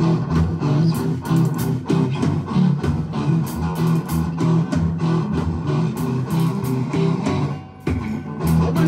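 Live band playing: strummed guitars over a bass line with a steady beat. The band stops briefly about three-quarters of the way through, then comes back in together.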